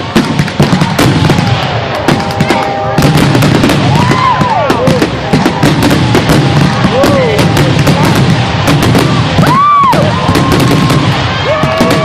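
Fireworks display going off: a dense, continuous run of sharp bangs and crackles.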